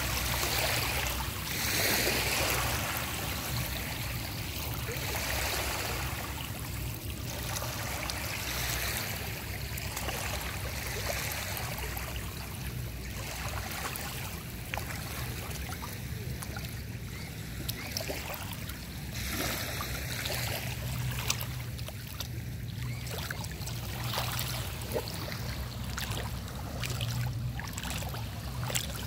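Small waves lapping and trickling in shallow river water, with scattered small splashes and a low steady rumble underneath.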